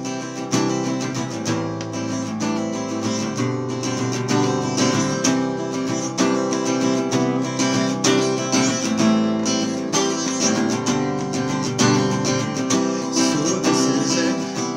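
Acoustic guitar strumming chords steadily: the instrumental intro of a song, with no singing yet.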